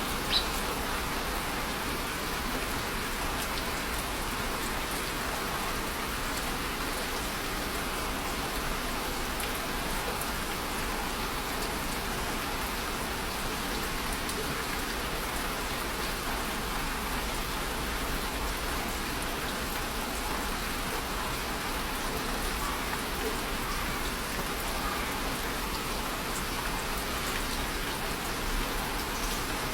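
Steady rain falling, an even hiss with no change in strength, with one sharp tap a fraction of a second in.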